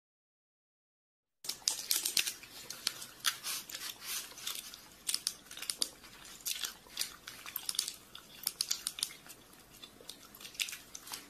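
Computer keyboard being typed on fast: a busy, irregular run of key clicks, starting about a second and a half in after silence.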